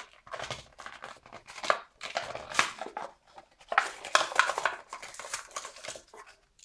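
Hands handling a toy-car blister pack: the stiff plastic bubble crinkling and the cardboard backing card rustling and tapping, in irregular crackles, scrapes and taps.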